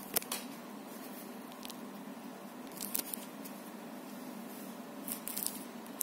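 Daikin FTNE35MV14 wall-mounted split air conditioner indoor unit running in cooling, its fan giving a steady, even hush of moving air. A few short crackling clicks come through at the start, about halfway, and near the end.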